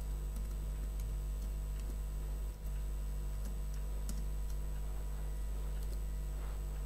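Scattered computer keyboard keystrokes as code is typed, a few light clicks a second with pauses, over a steady low electrical hum.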